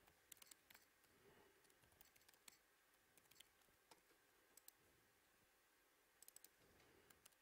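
Near silence with faint, scattered key clicks of typing on a computer keyboard, including a small cluster of clicks near the end.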